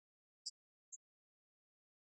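Near silence, broken by two brief, faint high-pitched chirps about half a second apart.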